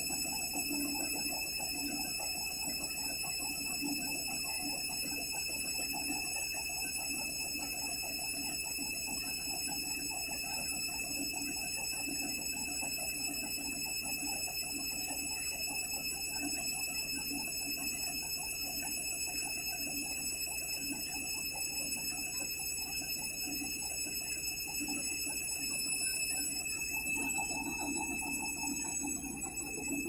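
Candy Smart Touch washing machine on its delicate spin at 400 RPM: the drum turning with a steady motor whine and a low, rhythmic thrum.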